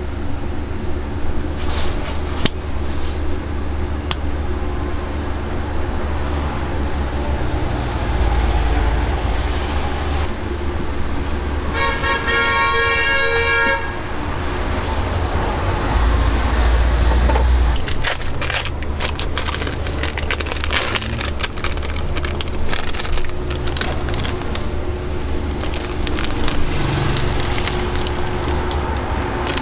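Street ambience with a steady low traffic rumble; about twelve seconds in a car horn sounds once, held for about two seconds. From about eighteen seconds on, a dense run of clicks and clatter.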